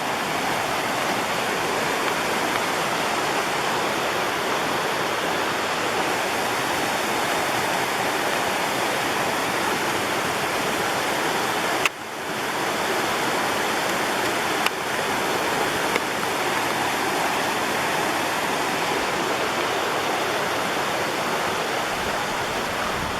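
Rushing water of creek rapids: a steady, even rush of white water, with a brief dip about halfway through.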